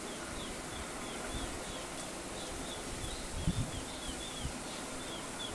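A bird calling over and over in short, falling chirps, about three a second, over a steady outdoor hiss, with a few low thumps about three and a half seconds in.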